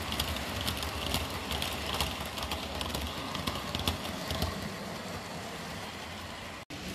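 HO-scale model freight train rolling past on the track, its wheels clicking irregularly over rail joints over a low hum. The clicking thins out after about four and a half seconds as the wagons go by, and the sound cuts out for an instant near the end.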